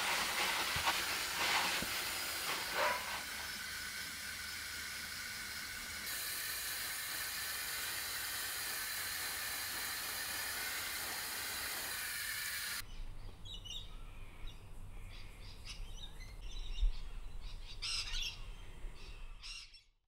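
Garden hose spray nozzle hissing steadily as it waters seedling trays, cutting off suddenly about two-thirds of the way through. Afterwards birds chirp.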